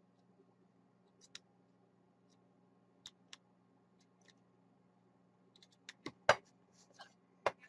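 Soldering iron tip tapping against a metal tin can lid: a few sharp metallic clicks, the loudest about six and seven and a half seconds in. Before them come a few faint ticks of handling the mouse's circuit board.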